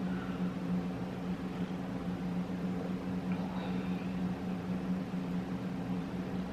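A steady low hum from a running appliance or motor, with a couple of faint light sounds over it about halfway through.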